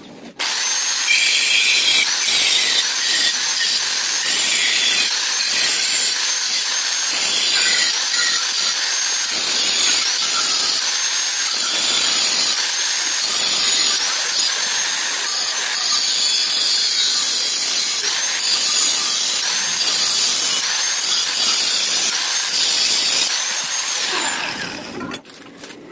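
Angle grinder cutting into a stainless-steel exhaust pipe. It starts suddenly, and its loud whine dips and recovers as the disc bites the metal. It winds down near the end.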